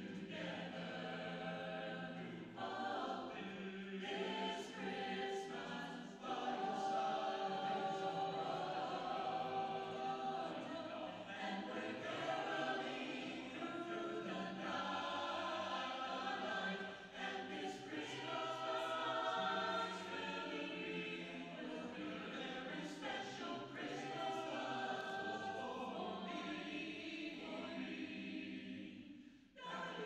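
Mixed choir of men's and women's voices singing in harmony, with a short break near the end before the singing resumes.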